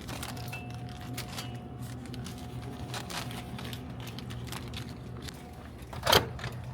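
Snack packets rustling and clicking faintly as they are handled, over a steady low hum with a thin steady tone; one sharp knock about six seconds in.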